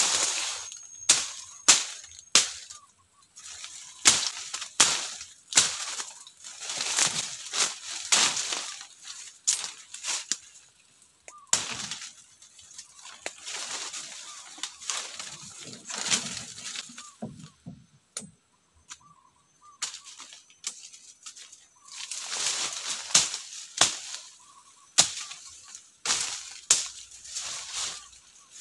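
Machete slashing through forest undergrowth: quick swishing chops through ferns and sapling stems at an irregular pace, roughly one or two strokes a second, with brief pauses and leaves rustling as the cut brush is pulled aside.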